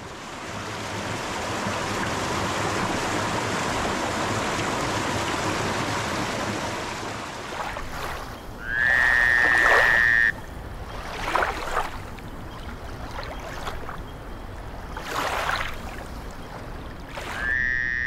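Water rushing over a low stone step in a clear stream, a steady splashing rush that fades after about eight seconds. Then a loud, steady high-pitched tone sounds twice, each time for about a second and a half, with a few short falling calls in between.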